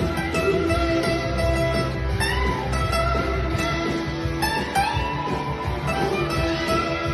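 Background music with plucked guitar-like strings and held notes.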